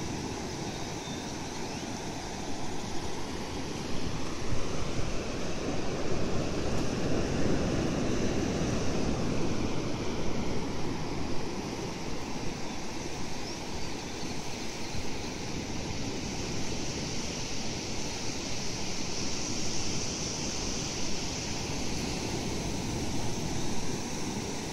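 Ocean surf breaking and washing up a flat beach: a steady rush that swells from about three seconds in, then settles to a gentler wash.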